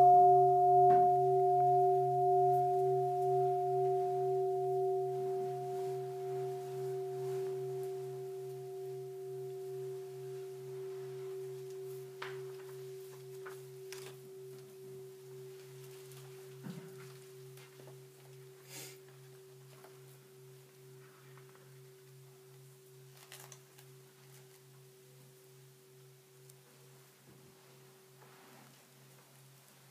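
A large Buddhist bowl bell rings out after a single strike and fades slowly to near silence, its lowest tone wavering in a slow, even pulse. A few faint clicks and rustles come in the second half.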